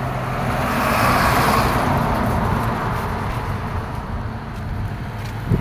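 Road traffic: a truck passes close, its engine hum and tyre noise swelling about a second in and fading by about three seconds into steady traffic noise.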